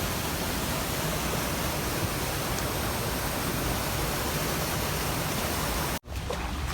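Steady rushing noise of a waterfall's falling water. It cuts off abruptly about six seconds in, and a quieter rush of water follows.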